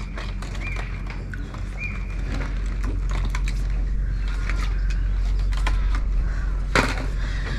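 Scattered light clicks and small knocks from fishing tackle and bait being handled on the raft, over a steady low rumble. A short rising-and-falling chirp repeats every half second or so in the first two seconds, and there is a louder sharp knock near the end.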